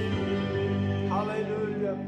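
Church worship music: sustained keyboard chords held underneath, with a singing voice coming in briefly about a second in.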